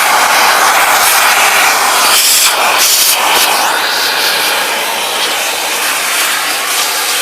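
Vacuum cleaner running, a steady loud rush of air and motor noise that shifts briefly a couple of seconds in as the suction changes.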